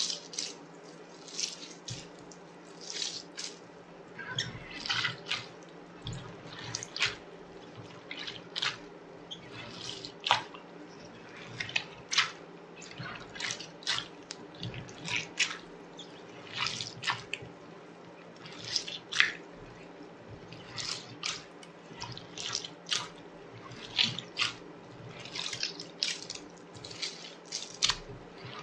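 Hands squishing and kneading homemade slime from a failed batch, making irregular wet pops and squelches about once or twice a second over a faint steady hum.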